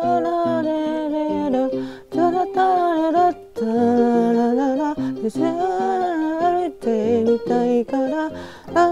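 A woman singing a melody over her own electronic keyboard accompaniment, with short low keyboard notes repeating beneath the voice. The voice breaks off briefly a few times between phrases.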